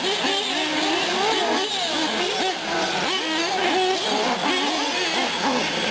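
Several 1/8-scale nitro R/C cars' small glow engines, mostly Associated SC8 short-course trucks, revving and easing off as they lap the track, their whines rising and falling and overlapping one another.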